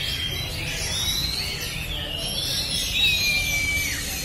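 Several caged oriental magpie-robins singing at once, overlapping clear whistled phrases that glide up and down. A long whistle near the end drops in pitch as it finishes.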